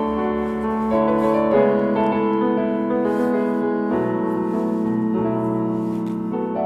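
Background piano music, a solo piano cover of a K-pop song, with sustained chords that change about every second.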